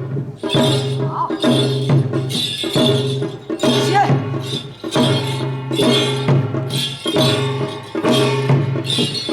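Korean samul nori percussion ensemble playing a seated pangut rhythm: bright metallic gong strikes ring over drums in a steady, dense beat.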